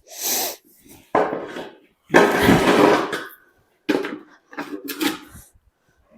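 Stable being mucked out: a mucking-out tool scraping and clattering across the stable floor in five bursts, the loudest lasting about a second just after two seconds in.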